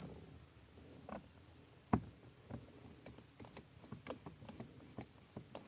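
Small screws being driven with a screwdriver into a plastic display housing: scattered light clicks and ticks, with one sharper click about two seconds in.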